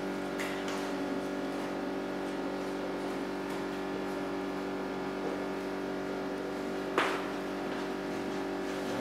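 A steady hum made of several pitched tones, with one sharp click about seven seconds in.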